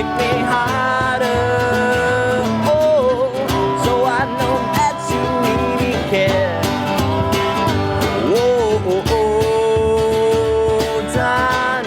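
Live rock band playing an instrumental break: a lead melody of long held notes that bend and slide, over drums and bass.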